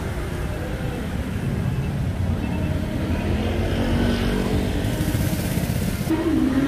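Motorbike traffic on a city street: engines running past over a steady low rumble of traffic.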